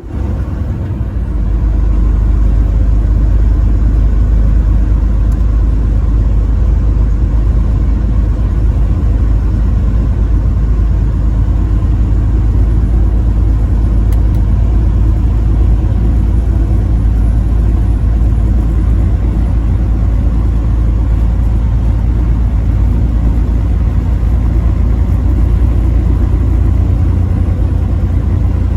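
Semi-truck driving on the highway: a steady deep engine and road rumble that swells to full level about a second in and then holds even.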